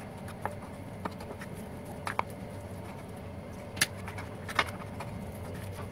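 A steel spoon clicking and knocking against the bowl now and then as gram flour is stirred with water into a thick batter: a few separate sharp ticks, the loudest two near the middle, over a steady low hum.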